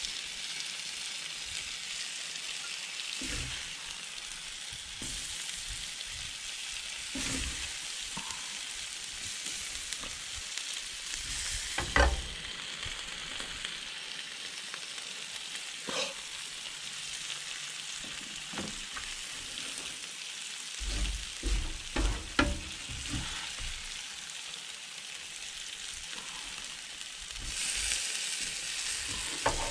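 Sliced steak, peppers and onions sizzling steadily on a 22-inch Blackstone flat-top griddle, with a metal spatula scraping and knocking on the steel plate now and then. The loudest knock comes about twelve seconds in, and a quick run of knocks a little past twenty seconds.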